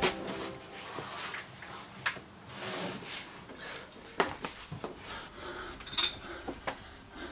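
Scattered soft knocks, taps and rubbing from a person crawling on hands and knees over carpet out of a cluttered cupboard, with a few sharper clicks.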